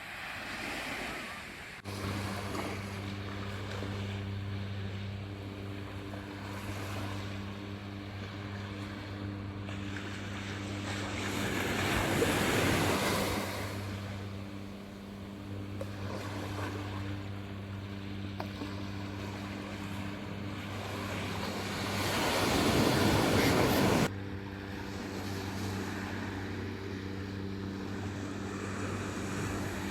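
Waves washing in on the beach, swelling twice, around the middle and near the end, the second cutting off suddenly; under them a steady low motor hum.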